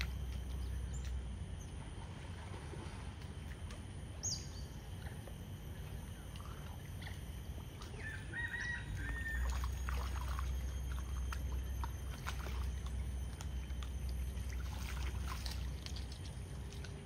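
Water splashing and lapping as smooth-coated otters swim and feed in shallow water, with scattered small clicks and splashes. A low rumble runs under much of it, and a brief bird chirp comes about halfway.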